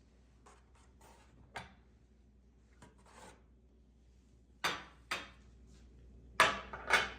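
Kitchen dishes and utensils being handled: a few soft scrapes and light taps, then four sharp clinks or knocks in the last few seconds, the last two the loudest.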